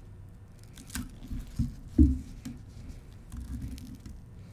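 A thin slab of ice handled with gloved fingers on a wooden plate: a few light clicks and crackles, and one heavier knock about two seconds in, over low handling noise.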